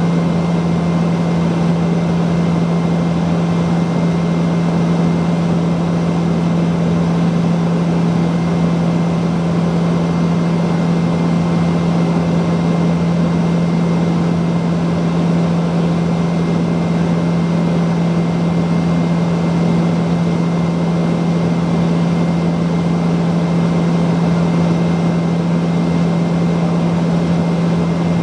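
Cabin noise of a Saab 340B turboprop airliner in flight: the steady drone of its General Electric CT7 turboprop engines and propellers, heard from inside the cabin, with a strong low hum and a faint high whine.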